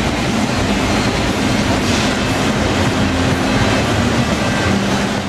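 Mack pulling truck's diesel engine running hard and loud under full load, pulling the weighted sled down the track.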